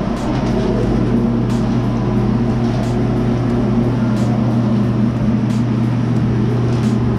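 Electric ventilation fan running steadily: a loud, even motor hum, with a faint tick about every second and a quarter.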